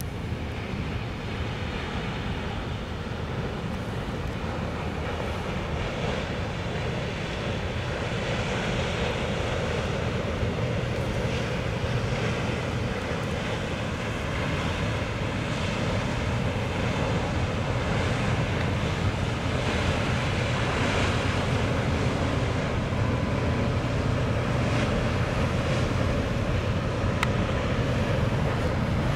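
Inland motor cargo ship passing close by: a steady low engine drone with the rush of its bow wave, slowly getting louder as it comes by, with wind on the microphone.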